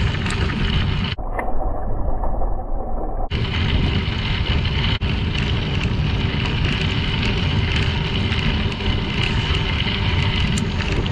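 Steady rumble of bicycle tyres rolling over a crushed-limestone trail, mixed with wind on the microphone. About a second in, the sound goes muffled for roughly two seconds before the full rumble returns.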